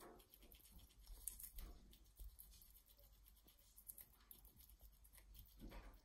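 Pet Eurasian red squirrel nibbling a lettuce leaf: faint, quick crunching and rustling of the leaf.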